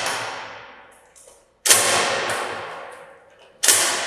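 Metal clanks from a Charpy impact testing machine's pendulum as its brake is applied to stop the swing: a sharp clank about every two seconds, each ringing out before the next.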